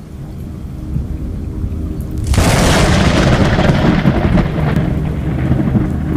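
A thunderclap about two seconds in: a sudden sharp crack that fades into a long rumble, over a low, steady droning music bed.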